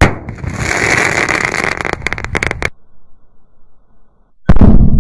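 Two large firecracker blasts, one at the very start and a louder one about four and a half seconds in. The first is followed by a couple of seconds of loud hiss ending in a few sharp cracks; the second by a low rumble.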